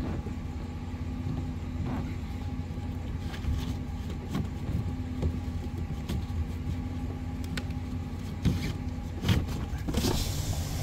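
A vehicle engine idling with a steady low hum, with scattered clicks and knocks as ratchet straps are handled and tightened over kayaks. Near the end it changes to road and wind noise inside a moving vehicle.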